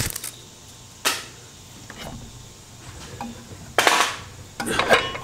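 A few sharp clunks and knocks, irregularly spaced, of handheld power tools being set down and handled on a wooden board. There is one at the start, one about a second in, and a tight cluster near four to five seconds.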